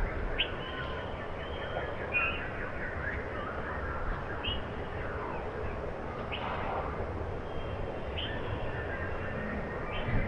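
Small songbirds chirping and calling, with short high notes and quick slurred calls scattered through, over steady low background noise.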